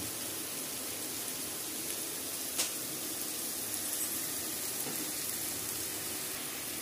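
Diced onion, carrot, beans and potato sizzling in hot oil in an aluminium pressure cooker, a steady frying hiss, with a single light tap about two and a half seconds in.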